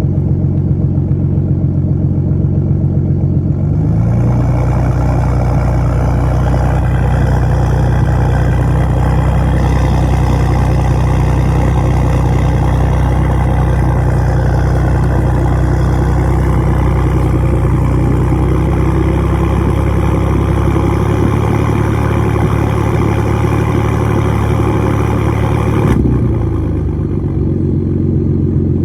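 2014 Ford Mustang's 3.7-litre V6 running steadily through stock headers and cats, a shop-made H-pipe and Magnaflow race axle-back mufflers. About four seconds in, the engine speed rises slightly and a rougher, noisier sound joins the exhaust note. It holds steady until near the end, when it drops back to the cleaner idle. The owner calls it a weird exhaust noise.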